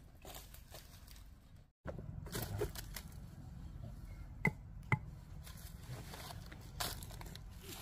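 Rustling and scraping of dry bamboo leaves and debris on the ground, with two sharp knocks about half a second apart near the middle: a machete blade striking bamboo.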